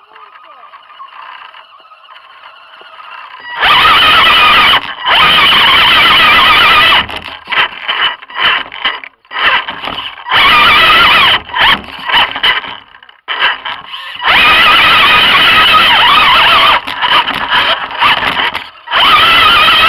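RC crawler trucks' electric motors and geared drivetrains whining under throttle in loud on-off bursts as they climb, with short gaps between bursts.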